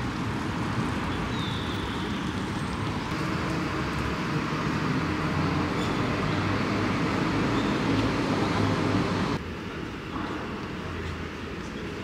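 Steady rumble of passing vehicle traffic with a low hum, building slightly, then dropping abruptly to quieter street ambience about nine seconds in.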